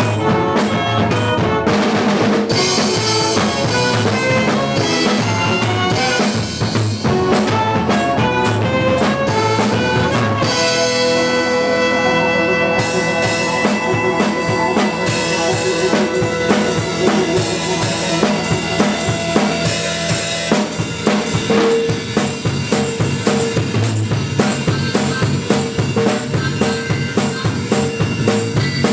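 Live band rehearsal: a drum kit, bass guitar and a horn section of saxophones and trumpet playing together, with a saxophone prominent. About ten seconds in, the cymbals drop out briefly under long held notes, then the full band comes back in.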